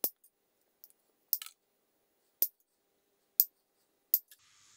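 Diagonal side cutters snipping the tails off plastic cable ties: about five sharp snips, roughly a second apart.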